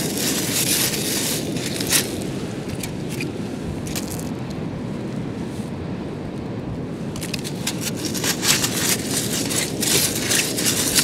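Wind buffeting the microphone, with a stainless steel mesh sand scoop scraping and crunching into beach shingle in the first two seconds and again from about seven seconds in.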